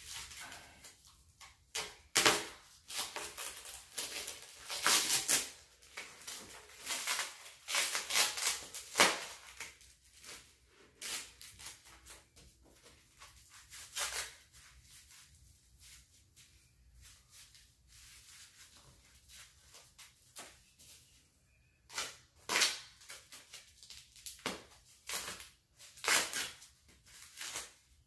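Foam packing wrap being cut and peeled off a bike frame by hand: irregular crinkly rustling and tearing in bursts, busiest in the first ten seconds and again near the end, with a quieter stretch in between.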